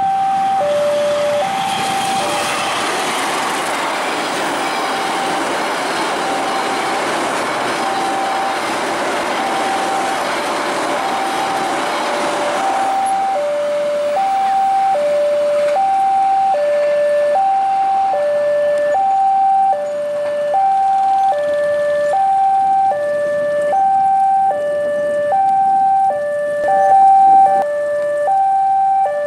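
Railway level-crossing warning alarm sounding a steady two-tone alternating signal, about one high-low pair a second, which means the crossing is closed for passing trains. For the first dozen seconds a passenger train runs past with a loud rolling rush of wheels on rail, which dies away when the last coach has gone by.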